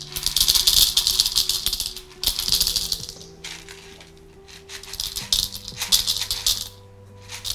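Roasted coffee beans poured from a scoop into a gourd bowl on a scale, rattling in three bursts as they are weighed out.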